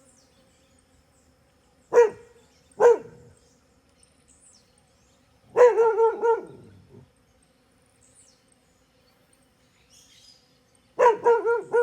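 A dog barking: two single barks about a second apart, then a quick run of several barks, then another quick run near the end.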